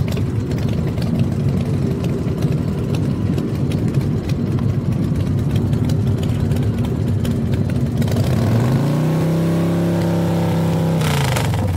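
Car engine running with a rough clatter, then revved: its pitch rises about eight and a half seconds in, holds for a couple of seconds and falls away near the end.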